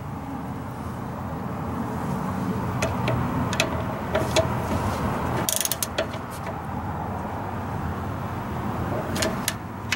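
Hand socket ratchet clicking in short runs as it turns the bleeder screw on a rear drum brake, a few scattered clicks in the middle and two more near the end, over a steady low background hum.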